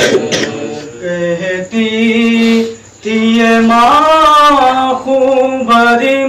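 A man's solo voice reciting a noha, the Shia mourning lament, without instruments, in long held notes. The pitch climbs and falls in a wavering line about four seconds in, after a short pause near the middle.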